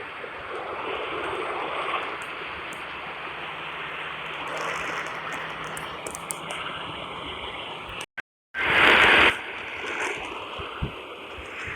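Radio static: a steady hiss of noisy reception between broadcast messages. About eight seconds in it drops out completely for a moment, then comes back with a short, louder burst of noise.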